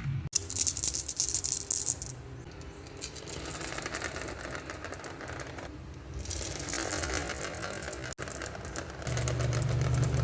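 Marbles rolling and clattering down a wooden marble run, a dense rapid rattle of small clicks. A steady low hum joins near the end.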